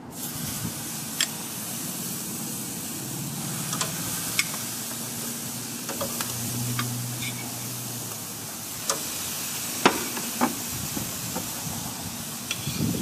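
Raw chicken pieces sizzling as they are laid skin side down on a hot grill grate, a steady hiss. Several sharp clicks of metal tongs against the grate are heard along the way.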